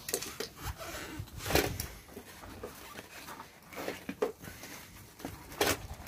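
Rubber bicycle tyre being worked around its rim by gloved hands: irregular rubbing and scuffing noises, with a few sharper scrapes about one and a half seconds in and near the end.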